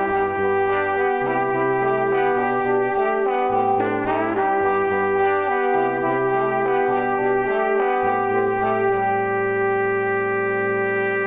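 Background music: sustained chords over a bass line that steps to a new note every second or so, cutting off at the very end.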